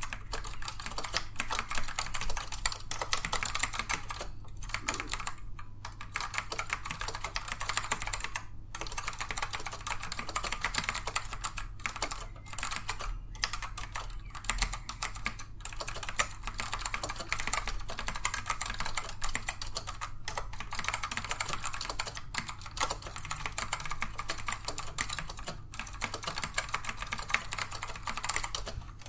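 Fast, continuous typing on a Dell AT102W mechanical keyboard with black Alps switches: dense key strokes with only brief pauses, tactile but not clicky. A steady low hum runs underneath.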